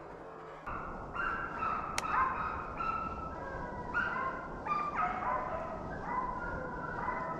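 A pack of deer hounds baying, several dogs giving drawn-out overlapping cries, typical of hounds running a deer's track. There is one sharp click about two seconds in.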